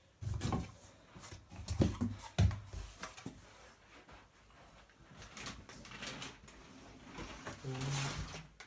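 Cardboard box being opened and a BMX frame pulled out of its packaging: a series of thumps and knocks, loudest in the first couple of seconds, then softer rustling and scraping.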